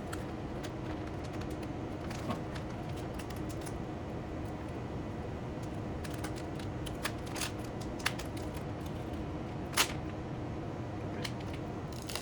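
Masking tape being handled and peeled: scattered small clicks and crackles, a slightly louder one near the end, over a steady background hum.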